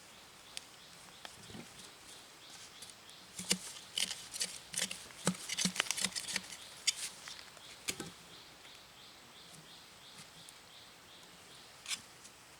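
A run of sharp clicks and knocks lasting a few seconds, with one more knock near the end. Behind it, a faint high chirp repeats about three times a second.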